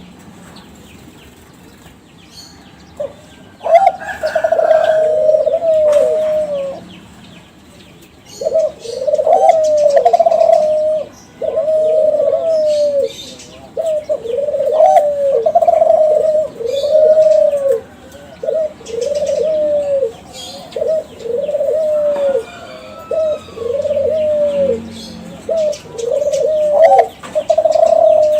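Kelantan-line spotted dove (derkuku) cooing: a long run of repeated coo notes, about one a second, beginning a few seconds in with a short break partway through. Faint high chirps sound in the background.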